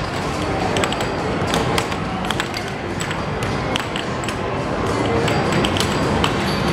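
Air hockey puck and mallets clacking in quick, irregular sharp hits, about two or three a second, over a steady din of arcade machines and music.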